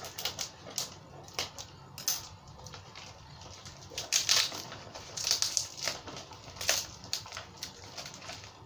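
Plastic packaging wrap crinkling and rustling as it is pulled and torn open by hand, in irregular bursts that are loudest from about four to seven seconds in.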